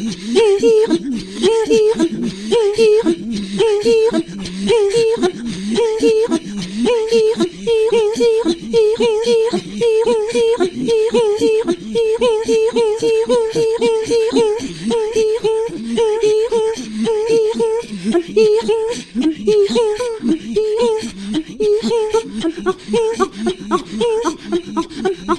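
Inuit throat singing (katajjaq): voices trading a quick, rhythmic pattern of a repeated higher note and short low breathy pulses, kept up steadily and loosening near the end.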